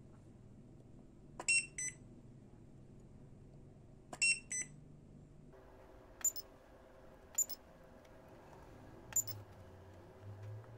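BIFRC DH20 portable battery spot welder firing its pen probes on nickel strip over 18650 cells, set to its top level 9. Two pairs of short electronic beeps with sharp clicks come in the first half, then three single sharp clicks a second or two apart.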